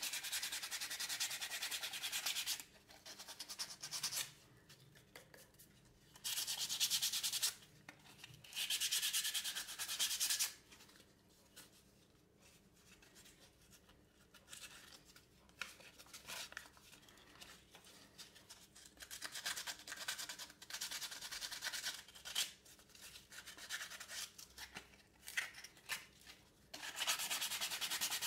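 Coarse sandpaper rubbed by hand along a wooden knife handle, in bouts of one to three seconds with short pauses between and lighter strokes through the middle. It is the rough 80-grit sanding stage that smooths a badly finished handle before it is oiled.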